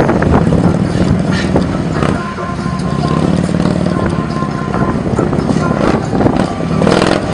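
Heavy police touring motorcycle's engine running at low revs through slow, tight turns, its note rising and falling a little with the throttle.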